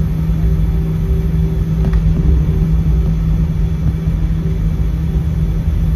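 Jet airliner cabin noise while taxiing: the engines' steady low rumble with a constant hum, heard from inside the cabin.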